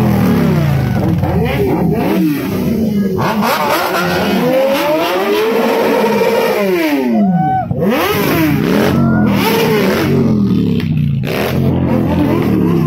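Several motorcycle engines revving over and over, their pitch sweeping up and falling back in overlapping waves.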